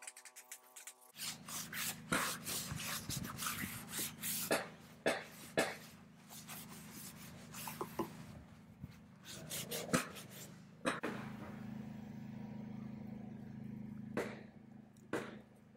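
Handling noise from staining wood by brush and rag: rubbing and scratching with scattered sharp clicks and knocks, over a steady low hum.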